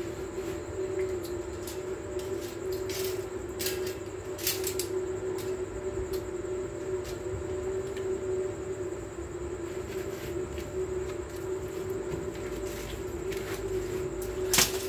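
A steady low hum with a faint, thin high tone above it, broken by a few short sharp clicks and knocks, the loudest near the end.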